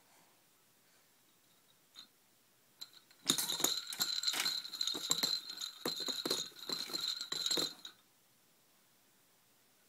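A foil pinwheel toy rattling as a baby shakes and knocks it. It comes in a dense run of rapid clattering strikes with a high ring through them, starting about three seconds in and lasting about four seconds.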